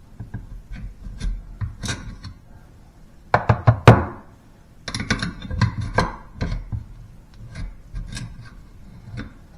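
A hand tool knocking and scraping inside a bathroom sink's drain pipe, probing up the drain to clear a clog of hair. Irregular clicks and knocks, with a louder cluster of knocks about three to four seconds in.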